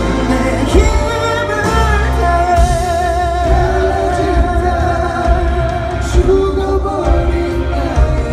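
Live pop band performing a song: singing held with vibrato over a steady beat of drums and bass.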